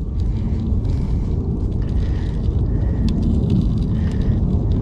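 Wind buffeting the microphone on an open shoreline: a steady low rumble, with a few faint clicks of shells and stones as hands dig through the mud.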